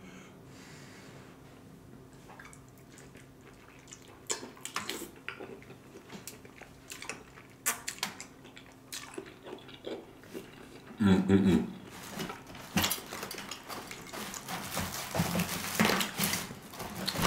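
Close-miked wet chewing and lip-smacking of a person eating lobster meat dipped in cheesy Alfredo sauce. The clicks are sparse at first and grow denser and louder towards the end, with a short hum about eleven seconds in.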